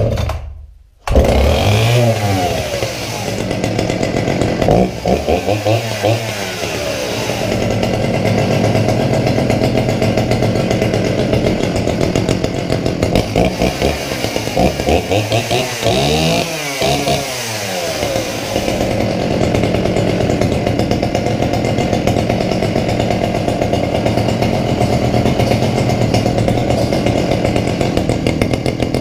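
A Sachs-Dolmar 112 chainsaw's 50 cc two-stroke engine catches about a second in and keeps running steadily after standing unused for a while. It is revved up and back down several times, and it runs well.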